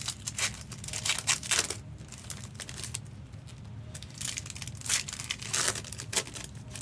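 Foil trading-card pack wrappers crinkling and tearing as packs are opened by hand, in irregular bursts of crackle, loudest about a second in and again near five seconds.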